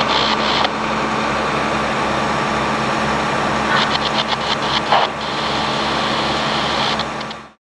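Fire engine's engine running steadily with a low, even drone, a few faint clicks and rattles over it around the middle, fading out near the end.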